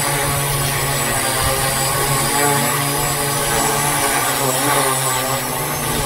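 Walkera X800 quadcopter's electric motors and large propellers hovering close overhead: a steady, loud buzzing hum whose pitch wavers slightly as the craft holds position.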